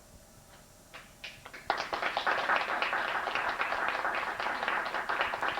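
Audience applauding: a few scattered claps about a second in, then many hands clapping together.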